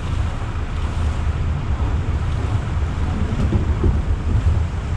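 Wind buffeting the microphone: a steady, uneven rumble with a hiss over it.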